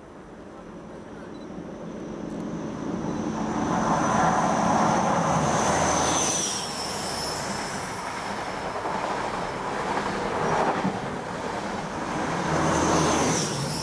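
An InterCity 125 (HST) diesel train passes at speed without stopping. The leading power car builds up over the first few seconds and its high whine drops in pitch as it goes by. The coaches' wheels then rumble over the rails, and the rear power car's whine rises and falls again near the end.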